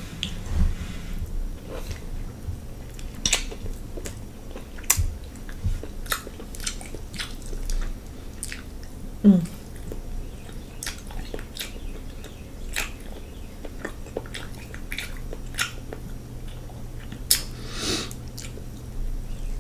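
Close-miked chewing and lip-smacking of someone eating king crab legs in sauce, heard as a string of short, wet clicks. There is a brief vocal sound about halfway through.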